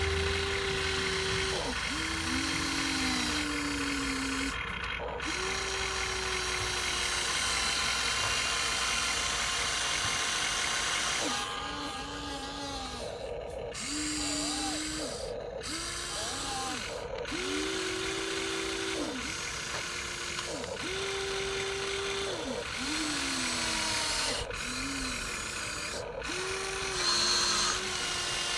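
Small electric motors of a Huina radio-controlled toy excavator whining in short runs of one to two seconds, starting and stopping over and over. Each run holds a steady pitch that sags as it cuts off.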